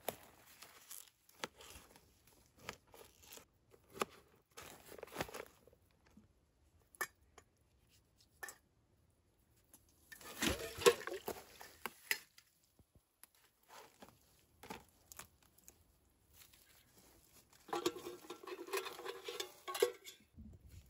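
A kitchen knife slicing a cucumber on a plastic cutting board, a string of short soft cuts. Later come two louder spells of utensils clattering and scraping against a small metal bowl, the second with a ringing metal tone.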